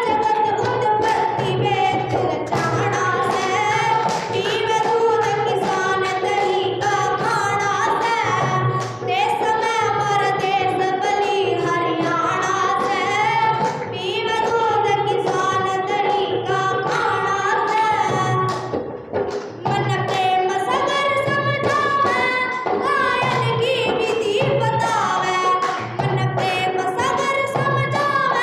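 A girl singing a Haryanvi folk song (geet) solo in long, ornamented phrases through a microphone, over a steady low beat.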